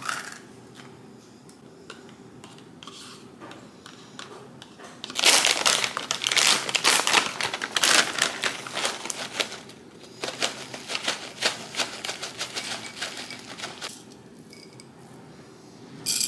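Faint spoon scrapes at first. About five seconds in comes a long crinkling of a plastic granola bag, with granola pouring and rattling into a ceramic dish. Scattered small clicks and rattles follow, and near the end there is a short rattle as mini chocolate chips are tipped from a glass jar.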